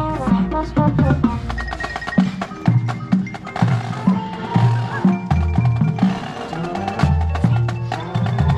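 Marching band playing its show music, with drums and mallet percussion prominent among the wind parts, heard from within the band.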